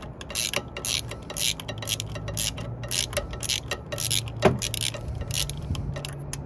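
Ratchet wrench clicking in a steady run, about three clicks a second, as it turns out the E14 Torx water pump bolts on a BMW N55 engine, with one louder knock about four and a half seconds in.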